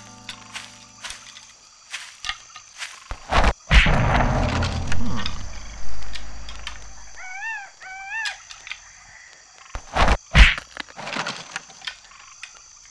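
Scattered knocks and thuds, with a heavy thud about three and a half seconds in followed by a few seconds of rumbling noise. Two short rising-and-falling whistled calls come around seven and a half seconds in, and two loud hits just after ten seconds.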